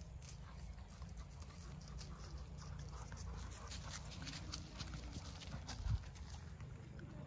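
Horse's hoofbeats on sand arena footing as it comes toward the microphone, heard as many soft clicks over a steady low rumble. One louder thump comes about six seconds in.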